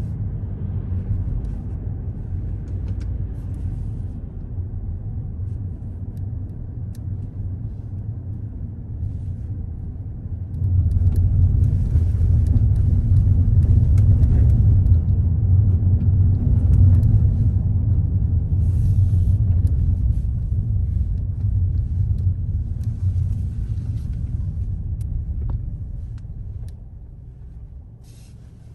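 A car driving on city streets: a low rumble of engine and tyre noise. It gets suddenly louder about ten seconds in and fades away near the end.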